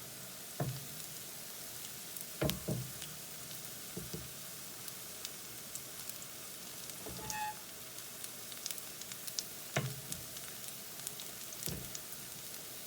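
Besan-battered plantain pieces sizzling in hot oil in a pan: a steady, fine hiss, with a few soft knocks every couple of seconds.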